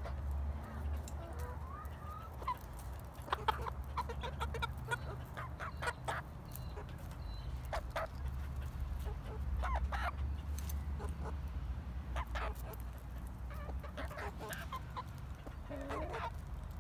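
Frizzle chickens, a hen's half-grown chicks among them, clucking and cheeping in short scattered calls, with a few longer gliding calls. A steady low rumble runs underneath.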